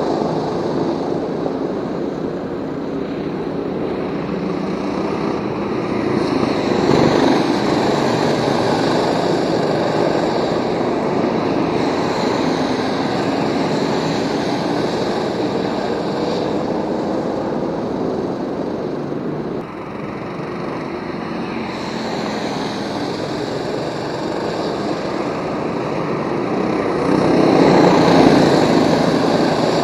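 Go-kart engines running around the circuit, rising and falling in pitch as the karts accelerate and brake, with louder swells as karts pass close about seven seconds in and again near the end.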